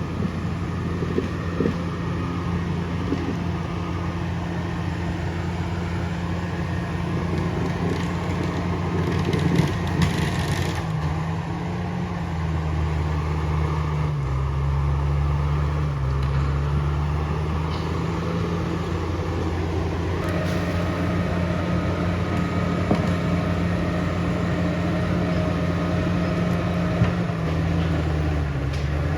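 Komatsu D68ESS bulldozer's diesel engine running hard as it drags a heavy log. Its pitch sags for several seconds midway and then recovers, as the engine is loaded down by the pull.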